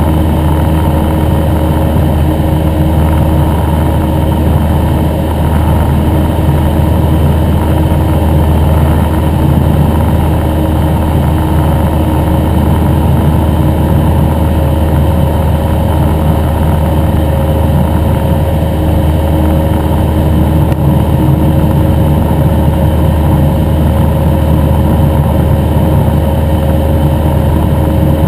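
Cessna 172N Skyhawk's four-cylinder Lycoming O-320 engine and propeller running steadily in cruise flight, a loud even drone that does not change.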